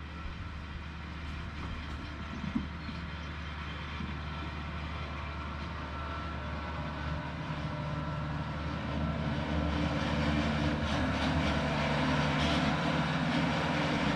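An engine running steadily, growing louder over the second half, with a low, even hum beneath a broad rushing noise.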